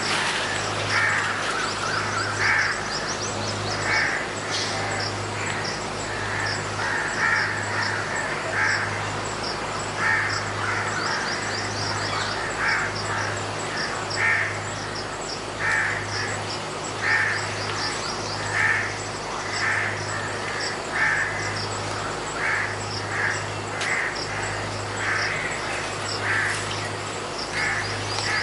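Short animal calls repeated roughly every one to one and a half seconds, over a steady low hum.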